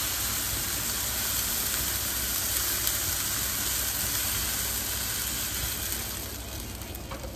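Boiling water from an electric kettle pouring into a hot wok of fried garlic and spice paste, a steady hiss of sizzling and gushing water. The hiss dies down about six seconds in as the pouring stops.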